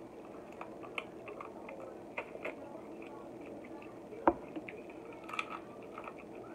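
Eating crab legs: soft squishy sucking and chewing sounds with small scattered clicks from handling the shell, and one sharp click a little over four seconds in.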